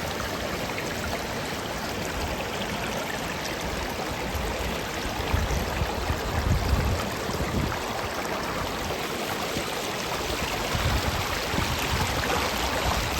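Water running steadily in a stream, an even rushing hiss. Low rumbles rise under it around the middle and again near the end.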